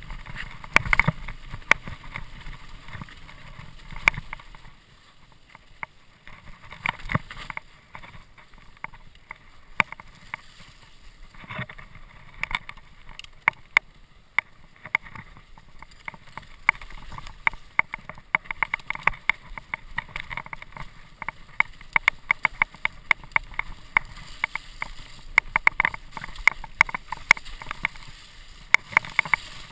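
Mountain bike rattling over a rough dirt trail on a downhill run: a continuous run of sharp knocks and clicks from the frame, chain and suspension. The knocks thin out for a stretch in the first half and come thick and fast again in the second half.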